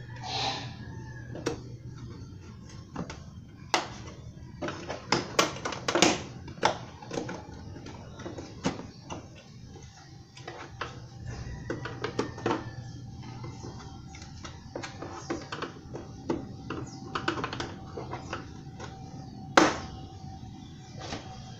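Irregular sharp plastic clicks and knocks from the Kymco Super Z 125's front fairing panel being pressed into its clips and worked with a screwdriver, with a loud knock near the end.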